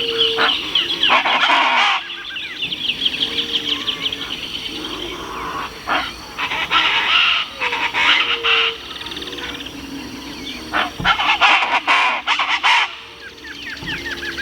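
A flock of Chaco chachalacas calling in a loud, raucous chorus. The chorus comes in three bouts: about a second in, around the middle, and shortly before the end. Other birds call steadily underneath.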